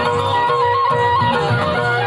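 Traditional folk dance music: a short ornamented melody repeating over a held lower tone and a steady drum beat.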